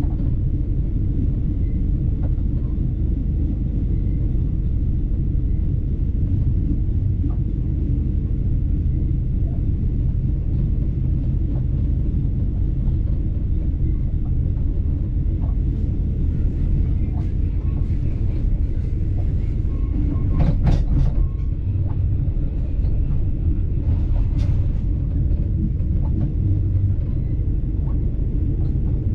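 Steady low rumble of a moving passenger train, heard from inside the carriage. A few brief, sharper rattles cut through about two-thirds of the way in.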